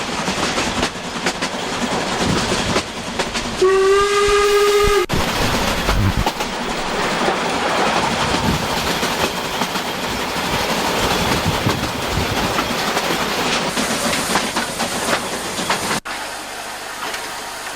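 A metre-gauge steam train running, with one steady whistle blast of about a second and a half around four seconds in, then the clatter and rumble of the train going by.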